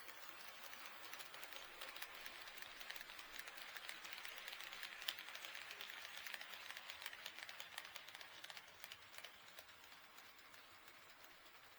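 HO-scale model train running past on the track, a faint rolling hiss with many small clicks of the wheels over the rail joints, growing louder toward the middle and fading away near the end.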